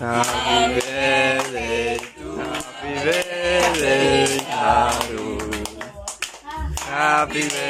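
A group singing a birthday song together, with hand claps in among the voices.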